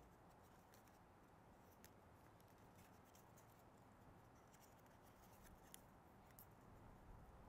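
Near silence with faint, scattered crackles of a small sheet of origami paper being creased and folded by hand.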